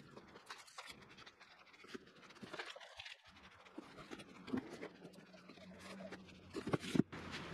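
Plastic wrapping and cardboard rustling and scraping as parts are lifted out of a packing box, in many short irregular scrapes, with a few louder knocks near the end.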